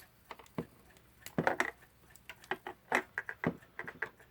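Small metal parts of a mechanical alarm clock movement being taken apart by hand: irregular light clicks and taps, with a busier cluster about a second and a half in.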